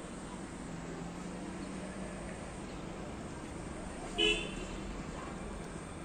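A single short vehicle horn toot about four seconds in, over steady outdoor background noise.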